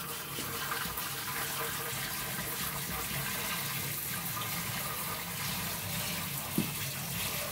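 Kitchen sink tap running steadily as a used utensil is washed under it.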